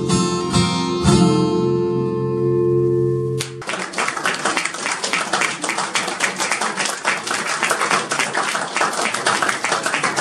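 Two acoustic guitars strum the closing chords of a song, the last chord ringing until it stops abruptly about three and a half seconds in. An audience then applauds steadily.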